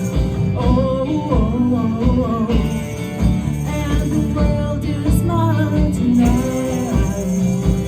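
Live indie-pop band playing a song: sung vocals over a steady drum beat, with a tambourine jingling along.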